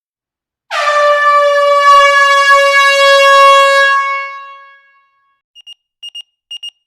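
A loud, long horn blast that sags slightly in pitch and fades away over about four seconds, followed near the end by an alarm clock's high double beeps, repeating.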